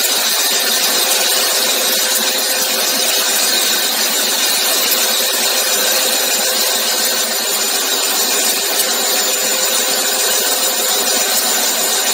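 Vision Wide ASM five-axis machining centre vertical-turning a workpiece on its spinning table: a steady, loud metal-cutting noise with thin steady tones running through it.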